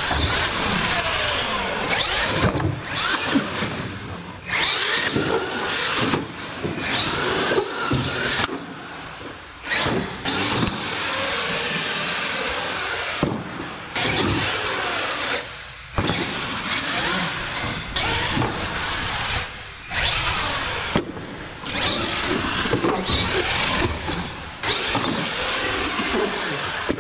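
Radio-controlled monster truck's electric motors whining in repeated bursts of throttle, the pitch rising and falling, with short pauses between bursts. Tyres and landings on the ramps add occasional knocks.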